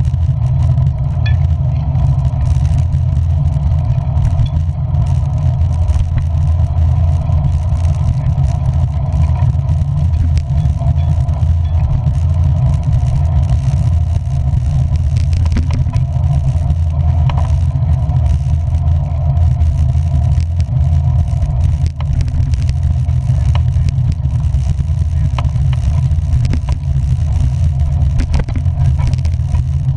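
Steady low rumble of a vehicle travelling on a rain-wet road, mostly road and engine noise, with a few faint ticks.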